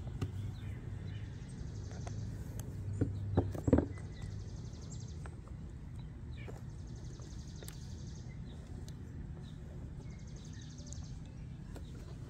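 Handling sounds over a steady low outdoor hum: a canvas sneaker bumps and knocks a few times on wooden deck boards about three to four seconds in while its lace is pulled out, with a few fainter ticks after.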